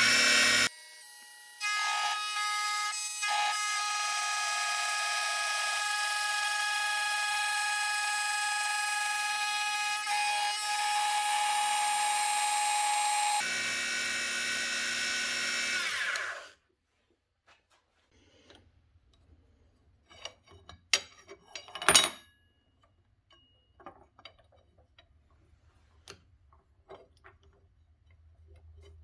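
WEN 33013 benchtop mini mill running, a steady high motor and spindle whine as the end mill works an aluminum bar. It cuts off abruptly about 16 seconds in, followed by faint clicks and knocks from handling, with one sharp click about 22 seconds in.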